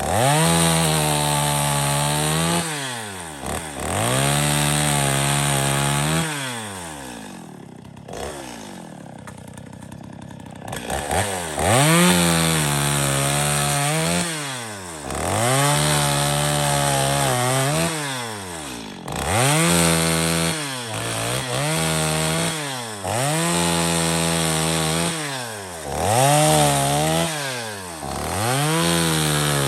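Stihl 021 two-stroke chainsaw cutting firewood, the throttle opened and eased off again every couple of seconds, so the engine pitch keeps rising and falling. About a third of the way in it drops to a quiet idle for a few seconds before revving up again.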